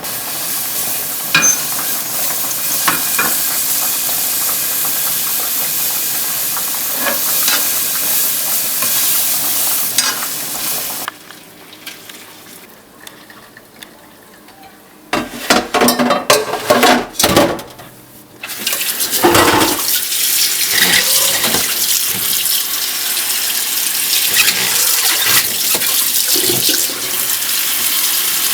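Kitchen cooking sounds: a steady hiss from food cooking on the stove, broken after about ten seconds by a quieter stretch, then a few seconds of loud clattering and knocking of cookware before the hiss returns.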